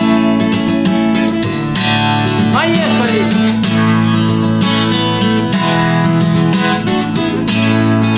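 Steel-string acoustic guitar strummed briskly in a driving rhythm, full chords ringing: the instrumental ending of a song.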